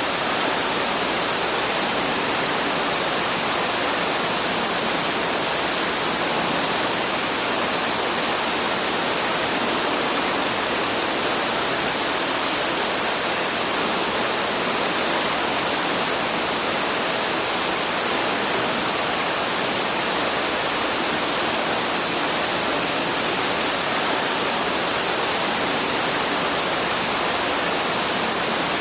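Waterfall pouring into a forest stream: a steady, even rush of falling water that does not change.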